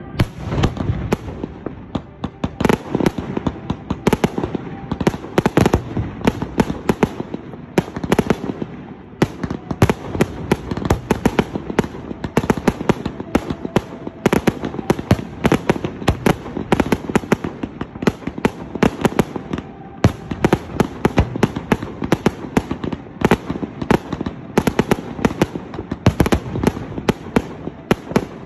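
Aerial fireworks shells bursting in rapid succession: dense, sharp bangs, several a second.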